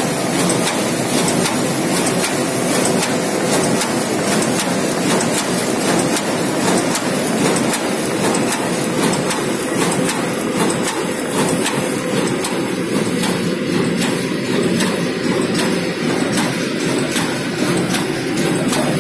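SimSun Alpine-145 gripper-type UV spot coater running: a steady mechanical clatter with a continuous run of quick clicks as sheets feed through.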